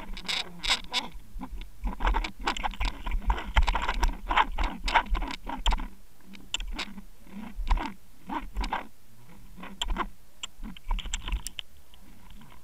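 Underwater, a rapid irregular clatter of clicks and knocks with low thumps as a hooked fish fights on the jig and jerks the line-mounted camera about. Busiest a couple of seconds in, thinning to scattered clicks near the end.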